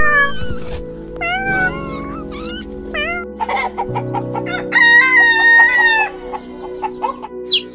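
Chickens calling over background music: short clucking calls in the first few seconds, then a longer held crow from a rooster about five seconds in.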